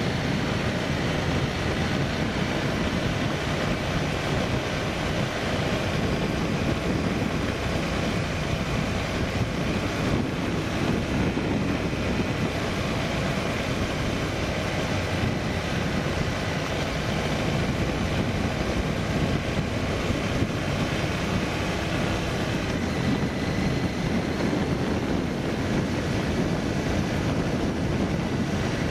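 Steady running noise of a vehicle under way on a rough road: engine and road noise mixed together, without a break.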